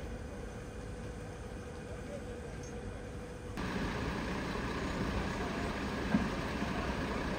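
Outdoor street ambience: a steady low rumble of traffic and engines, jumping abruptly louder about three and a half seconds in, with a small knock near the end.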